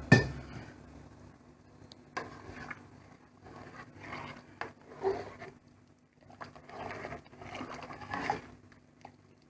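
A sharp knock just at the start, then a spoon scraping and stirring in a pot of soup with added canned corn, in short irregular strokes.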